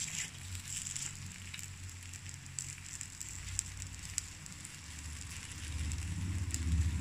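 Takoyaki balls frying in an electric takoyaki grill plate, sizzling with many small crackles. A low rumble builds from about five seconds in and is loudest near the end.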